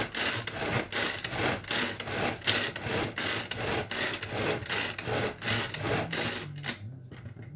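Tupperware Extra Chef pull-cord chopper worked by hand: a fast series of cord pulls, each spinning the blades with a rasping whir as they chop bread, shallot and parsley together, about two to three pulls a second, stopping about seven seconds in.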